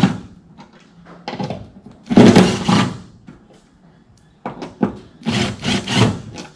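Cordless drill with a socket undoing a 5/16 in bolt on the wiper linkage mount, run in several short bursts; the longest and loudest lasts about a second, just after two seconds in.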